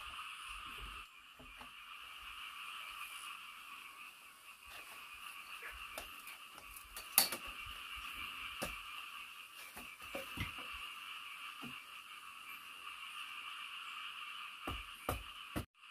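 A steady chorus of frogs calling, with scattered sharp clicks and knocks: the loudest about seven seconds in and a few more just before the end.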